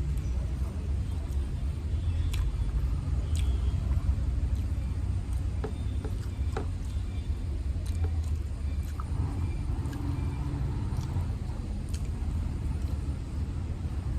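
Eating at a table: scattered light clicks and taps, about one every second or two, over a steady low background rumble.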